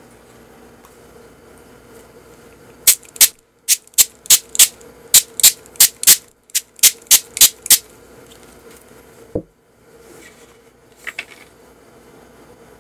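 Hand spray bottle misting water over unbaked mooncakes: about fifteen quick, hissing spritzes in a row over some five seconds. A single dull knock follows.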